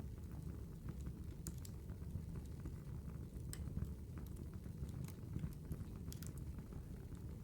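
Campfire burning, a low rumble of flames with scattered, irregular crackles and pops from the wood.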